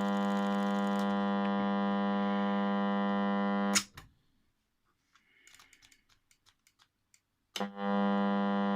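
Sony flip clock radio's alarm buzzer sounding a steady low buzz through its speaker, cut off with a click a little under four seconds in. A few faint clicks follow, then the buzz starts again with a click near the end.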